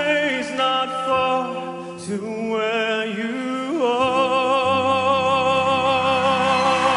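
A male solo singer holds a long, wavering high note with vibrato over backing music, the climactic final note of a ballad. The accompaniment swells and deepens about four seconds in.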